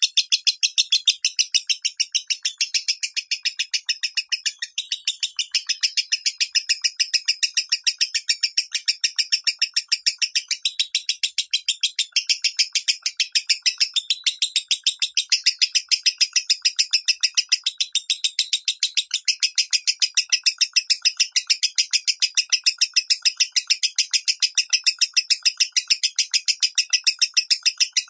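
Lovebird's continuous 'minor' chirping: short, sharp, high-pitched chirps repeated at about four a second without a break.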